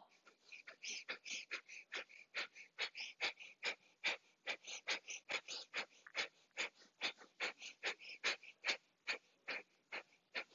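A woman's Kapalabhati breathing: rapid, forceful exhalations snapped out by the belly, each a short hiss, about four a second in an even rhythm.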